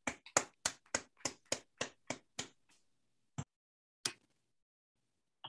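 Hand clapping after a talk: about ten quick, even claps, then two more spaced claps.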